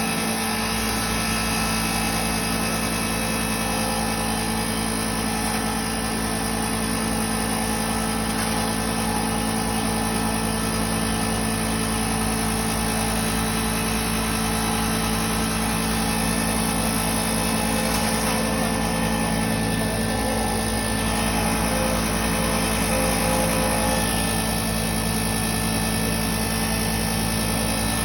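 Flower grinding machine running steadily: a constant machine hum with several steady tones.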